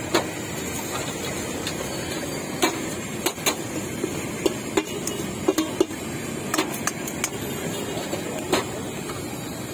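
Irregular sharp knocks and clacks of kitchen utensils being struck, some with a brief ring, over a steady background hum of street noise.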